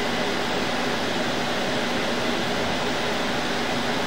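Steady mechanical hum with an even hiss, unchanging throughout, with a faint low steady tone underneath.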